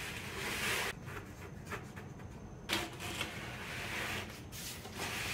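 Cardboard-framed furnace filters sliding into the slots of a wooden box, their frames scraping against the wood in several strokes, with a short knock midway.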